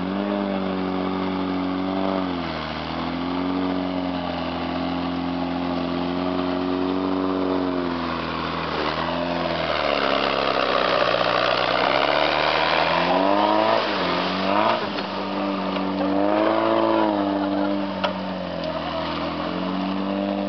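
Volvo Bv202 tracked vehicle's four-cylinder petrol engine working under load in mud and water, its pitch dropping and climbing again several times as it is throttled back and revved. One short sharp knock near the end.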